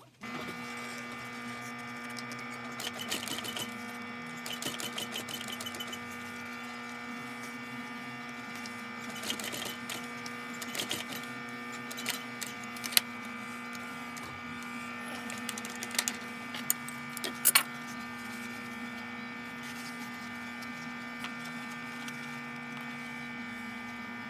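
Workshop machine's electric motor running with a steady hum that switches on at the start and cuts off at the end, with scattered light clicks and taps from handling.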